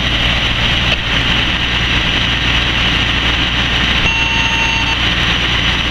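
Fire engine's diesel running steadily, a constant low hum with a hiss over it. A brief high beep sounds about four seconds in, lasting under a second.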